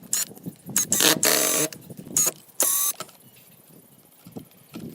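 Several short bursts from a small power-tool motor, each under a second, with quieter scrapes and knocks between them.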